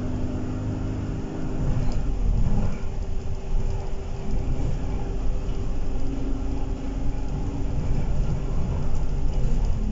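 Alexander Dennis Enviro 200 single-deck bus running on the road, heard from inside the passenger saloon: a steady low engine and road rumble under a humming drivetrain tone that fades about two seconds in and comes back around six seconds.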